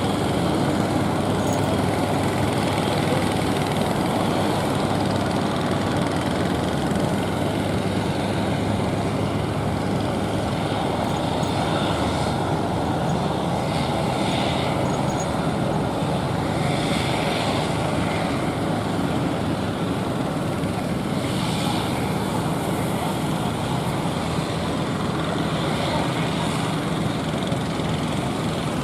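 A boat engine running steadily under a constant rushing noise, with brief hissy swells now and then.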